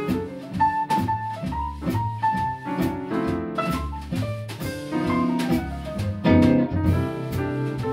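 Live swing jazz band playing an instrumental passage, with piano to the fore over upright bass and drum kit with frequent cymbal strokes.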